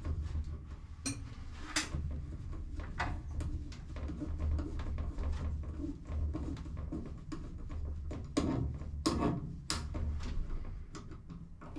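Metal wrenches and aluminium fuel-line fittings clicking and knocking as fittings on an aircraft fuel pump assembly are loosened and handled, with a towel rustling, over a steady low hum. A handful of sharp clicks stand out, the loudest nearly two seconds in and around nine seconds in.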